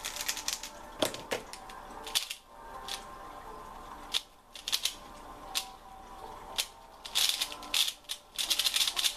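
Plastic speedcubes clacking as they are turned fast by hand: quick irregular runs of clicks with short pauses, busiest near the end.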